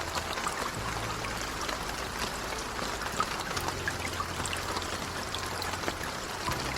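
Rain falling steadily: an even hiss of water with many small drop ticks, over low sustained tones that shift every few seconds.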